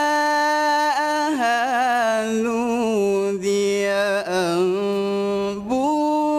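A young male qari reciting the Quran in melodic tilawah style, drawing one word out into a long ornamented melisma. The held note wavers with fine turns, steps down in pitch twice, and climbs back up shortly before the end.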